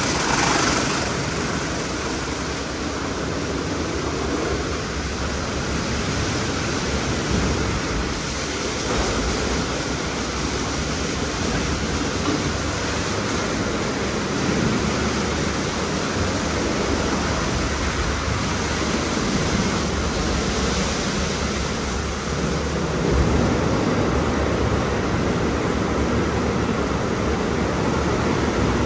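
WashTec SoftCare Pro rollover car wash in its brush-wash cycle: spinning SofTecs foam brushes and water spray working over a car, a steady rushing noise, with a brief louder flare at the very start.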